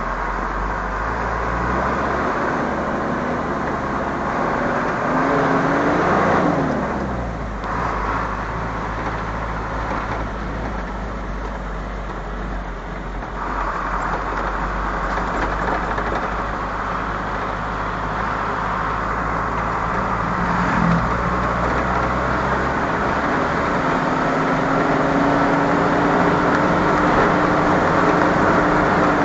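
Vehicle engine running while driving along a rough country road, with road and wind noise throughout. The engine pitch rises and falls about six seconds in, and a steady engine note climbs slowly near the end.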